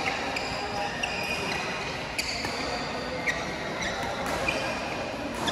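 Sports shoes squeaking on an indoor badminton court in short high-pitched chirps, with a few sharp racket-on-shuttlecock hits and background voices echoing in the hall.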